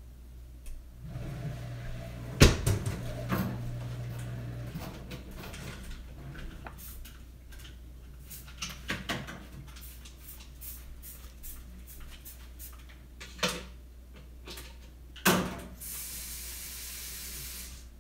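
Clunks, clicks and knocks of a spray bottle and kitchen items being handled while a water and dish-detergent mixture is made. There is a loud knock about two and a half seconds in and another near the end, then about two seconds of steady hiss.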